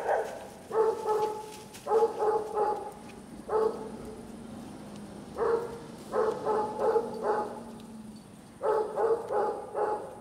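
A dog barking again and again in short runs of two to four barks, over a faint low hum.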